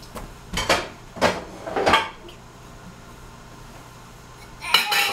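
A toddler clacking hard round coasters against a wooden side table: three sharp clacks with a short ring, about a second in and just before two seconds. Near the end another clack, and a baby's voice starts up.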